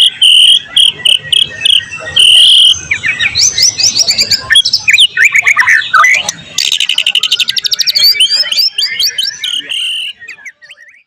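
White-rumped shama (murai batu) singing a loud, varied song. It begins with repeated clear whistles, moves into quick chirping and sweeping phrases, and delivers a rapid trill about two-thirds of the way through. The song stops shortly before the end.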